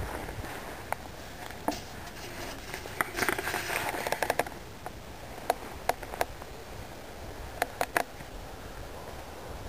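Handling noise on a handheld camcorder: irregular sharp clicks and rustling over a steady low hiss, with a longer stretch of rustling about three to four seconds in.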